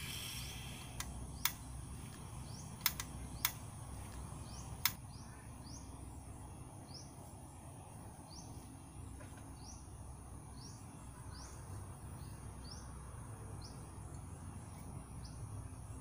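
Open-air ambience: a steady low rumble with a short, high, rising chirp repeating about once a second. In the first five seconds, about six sharp clicks and knocks of cookware and food being handled on a folding camp table.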